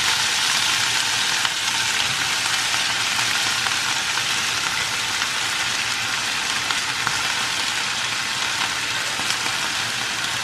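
Cauliflower florets and sliced onion sizzling in hot oil in a kadai, a steady frying hiss with faint crackles that eases slightly over the seconds.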